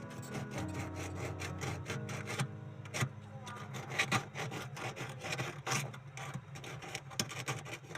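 Quick, repeated rasping strokes of a tool working metal by hand, scraping or filing the refrigerator's tubing, over steady background music.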